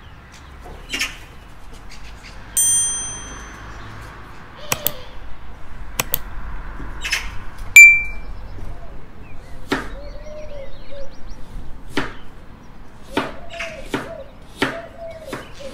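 Kitchen knife cutting peeled apples on a bamboo cutting board: a string of knife knocks on the wood. About two and a half seconds in comes a bright ringing ding, and nearly eight seconds in a loud short ping, the loudest sound. These are chime effects of an on-screen subscribe-button animation.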